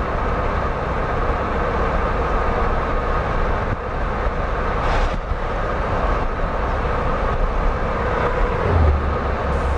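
Steady driving noise of a moving motor vehicle: a low rumble with an even hiss of road and engine noise. A short hiss rises above it about halfway through.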